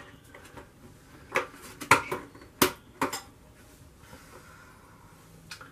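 Sharp snaps and clicks as the trim strip on a 1956 RCA Whirlpool upright freezer's cabinet is pulled loose by hand, its snap-in clips popping free. There are about five quick snaps between one and three seconds in, with quiet handling in between.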